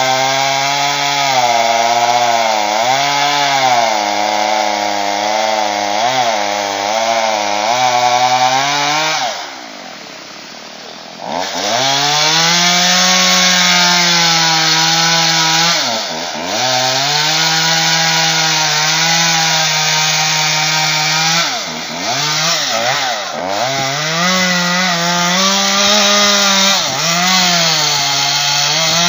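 Chainsaw cutting dead white birch wood, its engine pitch wavering under load. About nine seconds in it drops to idle for a couple of seconds, then revs back up and cuts on, sagging briefly a few more times.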